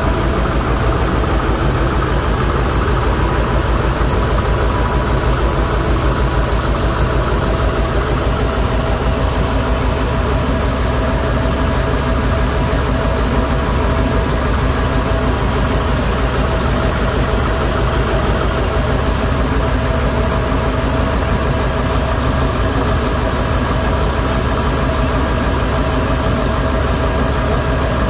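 GM 8.1 Vortec V8 idling steadily on one bank of cylinders, the other bank's ignition coils unplugged. Its valve cover is off, so the rocker arms work in the open.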